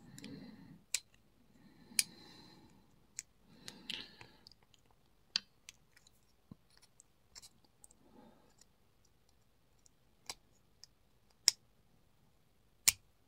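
Scattered sharp metallic clicks with soft scraping in between, as a tool works at the circlip on the back of a Mul-T-Lock 7x7 lock cylinder. The loudest clicks come about two seconds in and near the end.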